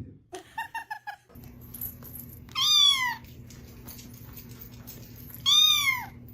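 A cat meowing twice, two loud drawn-out meows about three seconds apart, each falling in pitch, over a steady low hum. In the first second, a quick run of short high chirps.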